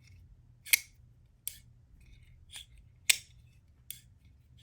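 Vosteed Ankylo folding knife being worked open and shut, its blade and lock giving five sharp metallic clicks, the loudest about three-quarters of a second in and again just after three seconds.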